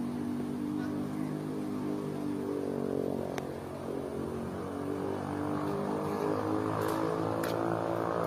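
A motor vehicle's engine running steadily, its pitch drifting up and down a little, with a few sharp clicks in the middle and near the end.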